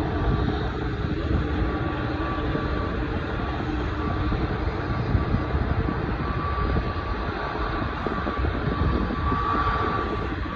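Boeing 787 Dreamliner's jet engines running with a steady low rumble as the airliner rolls slowly along the runway, with a thin high whine that comes and goes.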